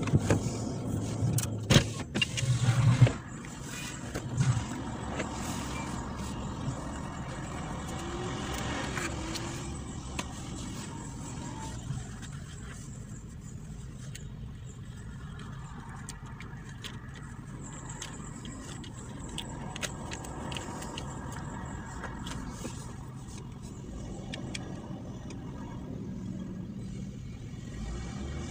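Steady low noise inside a parked car, with a few knocks and sharp clicks in the first three seconds. The whole track is sped up two times.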